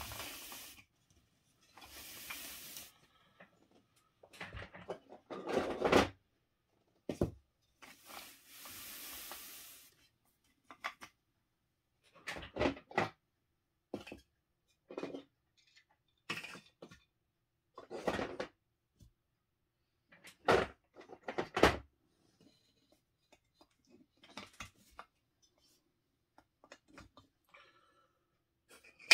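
3D-printed plastic terrain tiles clacking and knocking against each other as they are handled and fitted together, a dozen or so sharp knocks at irregular intervals. Two longer scraping stretches, one near the start and one about a third of the way in, as pieces are slid or rummaged.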